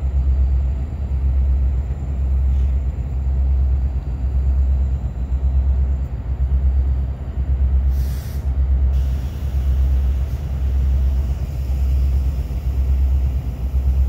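A low rumble that swells and fades about once a second, with a short hiss about eight seconds in.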